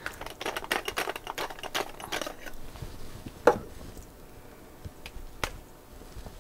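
A quick run of sharp plastic clicks and rattles as the battery compartment of a Shure PG2 handheld wireless microphone is opened and its 9-volt battery is pulled out, followed by two single sharp clicks.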